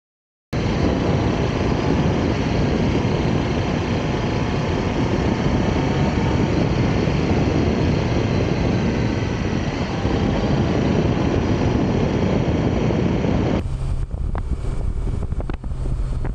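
Steady rush of a moving vehicle, mostly wind noise with a low rumble underneath, cutting in abruptly. About thirteen seconds in it drops to a softer low hum with a few clicks.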